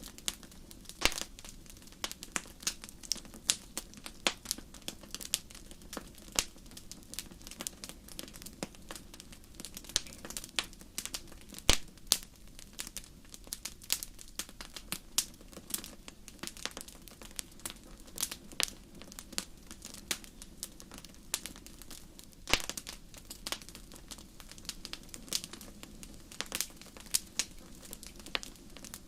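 Wood fire burning in a fireplace: irregular sharp crackles and pops, several a second, some much louder, over a soft steady low rumble.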